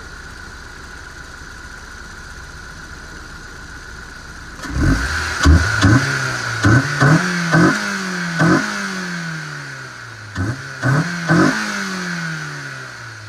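Honda S2000 four-cylinder engine idling steadily, then blipped hard in a quick run of six revs, each falling back in pitch. After a short pause come three more revs, and the engine settles back toward idle.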